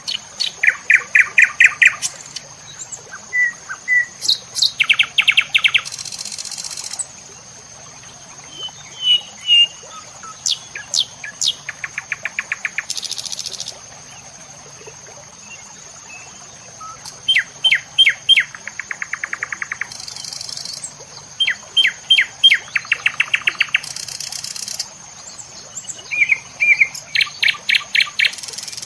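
A songbird singing the same phrase over and over, every few seconds: a run of quick, sharp high notes followed by a fast buzzy trill. A steady high thin whine runs underneath, with short hissy buzzes between the phrases.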